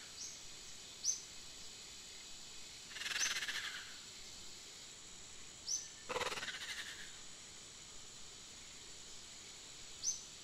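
Nature-style sound effects: short, high bird-like chirps, four of them, and two scratchy rustles about a second long, a little after 3 seconds in and a little after 6, over a steady high hiss.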